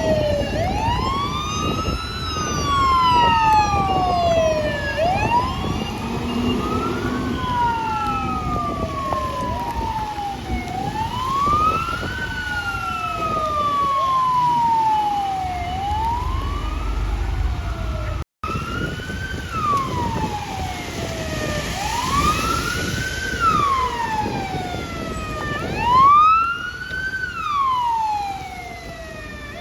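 Fire engine sirens wailing, each cycle a quick rise and a slower fall, with truck engine and road noise underneath. The sound cuts out for a moment about two-thirds of the way in, then the wail carries on.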